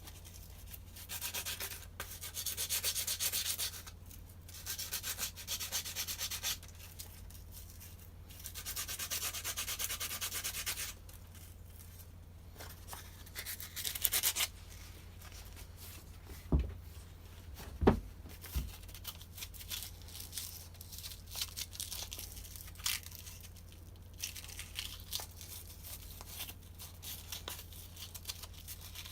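Hand sanding with sandpaper, rubbing rust off the strimmer's seized parts and their bushes in bursts of strokes. A few sharp knocks come around the middle.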